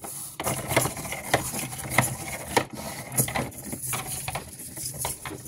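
Original Petoi Bittle robot dog walking on a hard tabletop: its small servo motors whir steadily while its plastic feet tap about twice a second.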